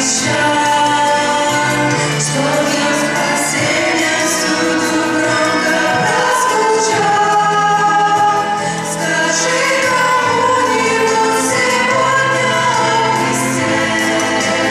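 A group of women singing a Russian-language Christian song together into microphones, several voices at once over steady held low notes.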